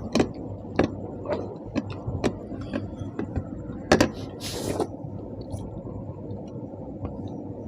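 Eating sounds of a panta bhat challenge: small clicks and taps of hands and dishes, with a brief hissing slurp about four and a half seconds in, then a steady low background.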